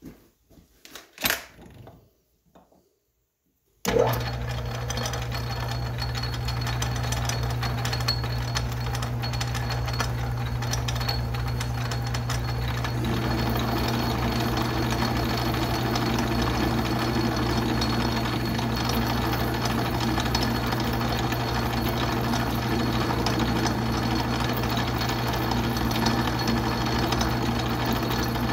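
A few clicks as the Atlas lathe's gearing is shifted, then about four seconds in the lathe starts and runs steadily with a low hum, growing a little louder about thirteen seconds in, as a parting tool cuts into 4140 steel. With its spindle's babbitt bearings freshly re-shimmed, the lathe parts the steel without chatter.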